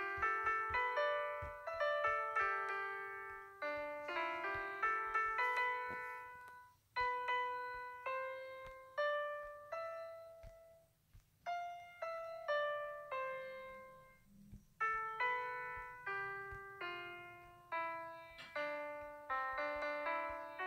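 Background piano music: a melody of struck notes that ring and fade, played in phrases with brief pauses about 7 and 11 seconds in.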